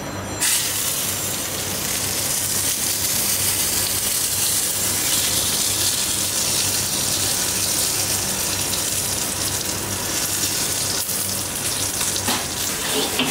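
Deep-fried tofu pieces sizzling in a heated, steaming stone bowl: a steady hiss that starts suddenly about half a second in, over a low kitchen hum.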